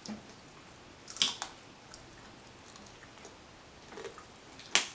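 Close-up eating sounds: chewing and wet mouth noises, with a few short clicks, a cluster about a second in and the sharpest one near the end.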